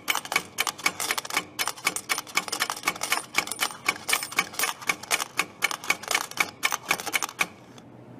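Vending machine's coin changer paying out quarters after the change button is pressed: a rapid run of sharp metallic clicks, several a second, that stops suddenly about seven and a half seconds in.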